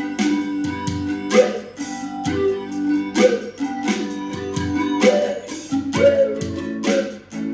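Music: a guitar-led piece with a steady beat and bass line, sharp strummed or plucked chords about once a second.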